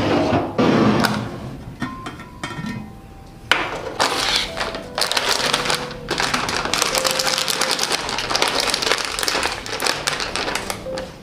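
A glass jar scraping as it is slid across a tabletop, then the crinkling of a plastic bag of powdered milk being handled and cut open with scissors, dense crackly rustling from about three and a half seconds in.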